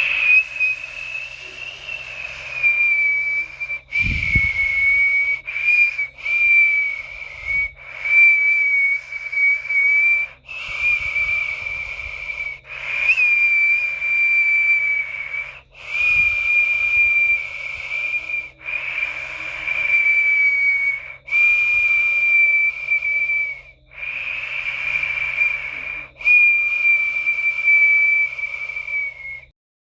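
A high, steady whistling snore sound with a hiss, repeating in stretches of about two to three seconds broken by abrupt short gaps.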